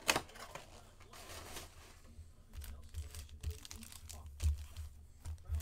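Plastic-wrapped Upper Deck hockey card packs crinkling and rustling as they are handled and gathered on a mat. A sharper tap comes just after the start and another about four and a half seconds in.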